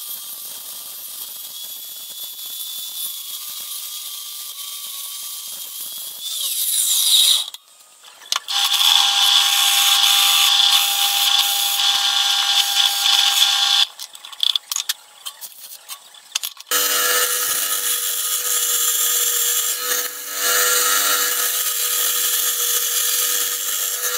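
Power tools cutting aluminium in three separate takes. First a mitre saw cutting aluminium plate with a steady whine. About a third of the way in comes a louder hole saw in a drill press boring through aluminium, and about two-thirds in a bandsaw cutting aluminium plate.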